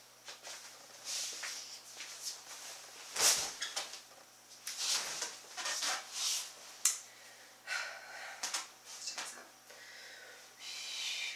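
A person's short breathy puffs and rustling, with a couple of sharper knocks, over a faint steady hum.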